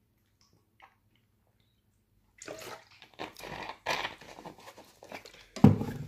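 Cola being swigged from a large plastic bottle: after a quiet start, a run of irregular gulping and sloshing liquid sounds, then a brief loud thump near the end.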